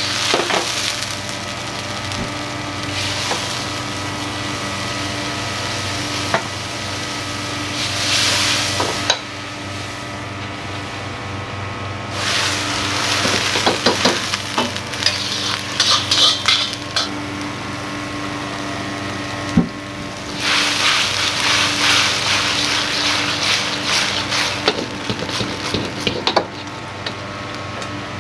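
Food sizzling and frying in a wok, with hissing surges as ingredients hit the hot metal and a metal ladle clacking and scraping as it stirs, over a steady kitchen hum.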